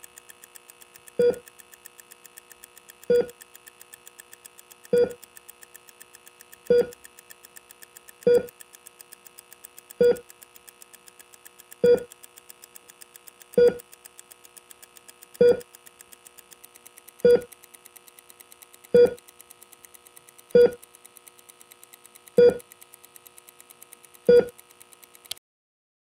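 Hospital patient monitor beeping slowly and steadily, one short beep about every two seconds, over a faint, fast ticking and a steady high tone. All of it cuts off abruptly near the end.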